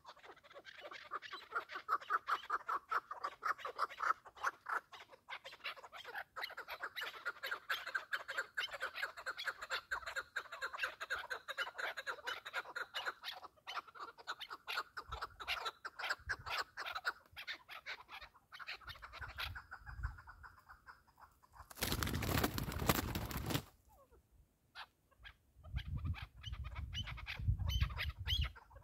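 A partridge calling in a long, rapid run of clucks, which thin out past the middle and come back near the end. About three-quarters of the way through, a loud rush of noise lasts about a second and a half, and low rumbling follows near the end.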